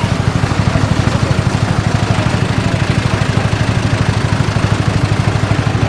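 Farm tractor engine idling close by, a steady rapid low beat with no change in speed.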